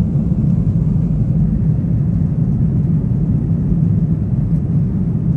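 Steady, loud rumble of an airliner cabin in flight: engine and air noise with a deep low drone.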